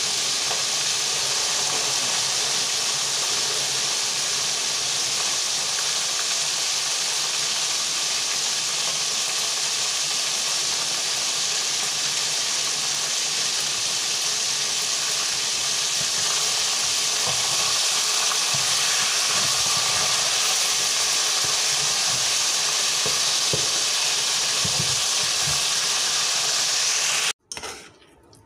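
Hot oil sizzling steadily in a pan as chicken pieces fry; it cuts off suddenly near the end.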